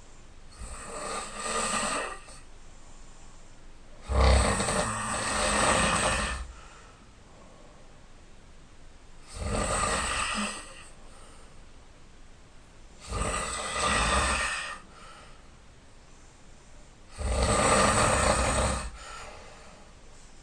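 A sleeping man snoring loudly, five rough snores about every four seconds, each lasting a second or two, with quieter gaps between them.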